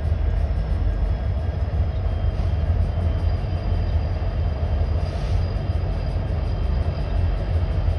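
Union Pacific manifest freight train rolling past: a steady, heavy low rumble of the train and its cars.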